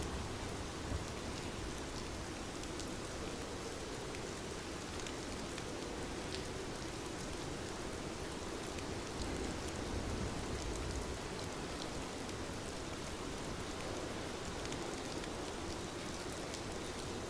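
Steady rain falling, with scattered droplet ticks and a low rumble underneath.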